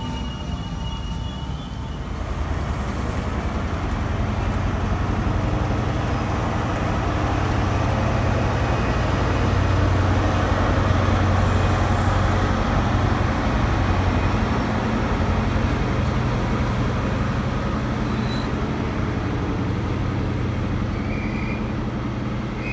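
LNER High Speed Train led by a class 43 power car with its MTU diesel engine running, moving along the line with a heavy low hum and rail noise. It grows loudest about halfway as the power car goes by, then eases off as the train draws away. A high whine from the train alongside is heard for the first two seconds.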